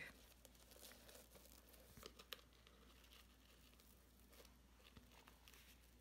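Faint rustling and scattered light ticks of ribbon and card being handled as a bow is tied, over a low steady room hum.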